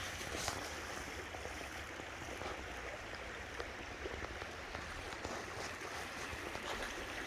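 Creek water flowing steadily over a shallow bed, an even rushing noise with a few faint light ticks.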